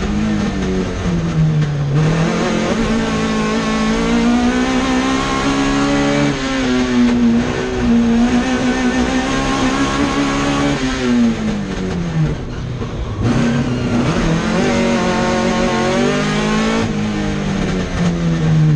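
Classic Mini's A-series four-cylinder engine working hard, heard from inside the cabin. The revs rise and fall repeatedly, dropping away about eleven seconds in, cutting briefly, then climbing again.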